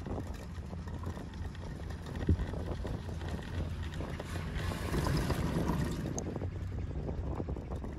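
Wind on the microphone over the low, steady running hum of a chairlift carrying a rider along its haul rope. A single knock comes about two seconds in, and there is a louder rumbling swell from about four and a half to six seconds as the chair passes a lift tower.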